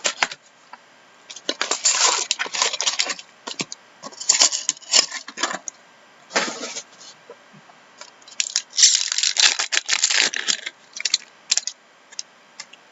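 Trading card box being opened: plastic wrapping and cardboard packaging crinkling and tearing in several irregular bursts, loudest near the end.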